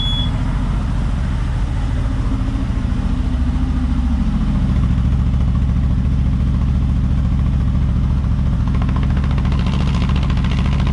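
CFMoto 1000 ATV's V-twin engine idling steadily through its stock muffler just after a cold start. The factory exhaust is so quiet that it sounds almost like a hybrid.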